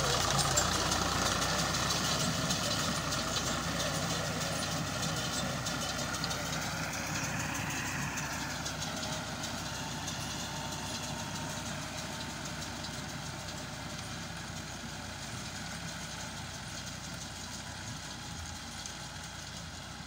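Tractor engine running steadily as it pulls a round baler across a field, fading gradually as it moves away.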